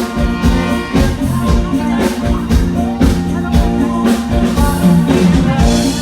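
Live band music through a stage PA during a sound check, with a steady drum beat of about two strokes a second under held instrumental notes.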